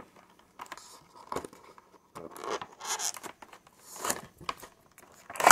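Clear plastic packaging crinkling and rustling in irregular bursts as it is handled, with a louder crackle near the end.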